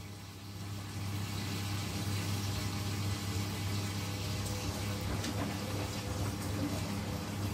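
Drain pump of an AEG Lavamat 800HC washing machine running with a steady hum as the wash water is pumped out before the first rinse. The sound grows louder about a second in.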